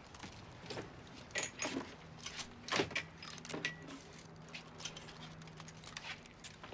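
A run of small metallic clicks, rattles and jingles, bunched around the first few seconds, over a faint steady low hum.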